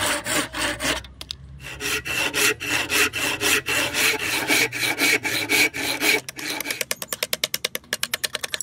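Handsaw cutting through a padauk blank held in a vise, in steady back-and-forth strokes of about three a second, with a short pause about a second in. From about seven seconds in, this gives way to quicker, lighter strikes of a large knife blade chopping out the waste between saw kerfs.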